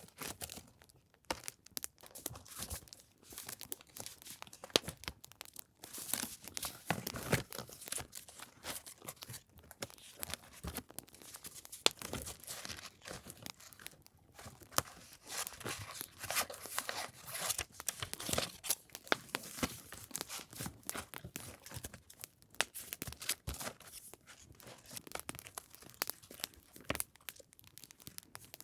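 Paper and packaging being handled: irregular rustling, crinkling and tearing, with short sharp ticks and taps in between.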